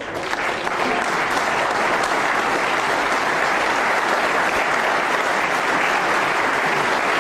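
Audience applauding a well-played safety shot: a dense, steady clapping that builds over the first half second and then holds.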